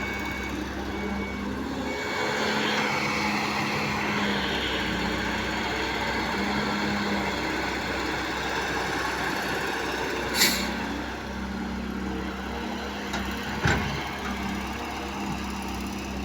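Heavy diesel machinery running steadily, with a reversing alarm beeping over the first few seconds. A sharp burst of hiss comes about ten seconds in, and a short knock follows a few seconds later.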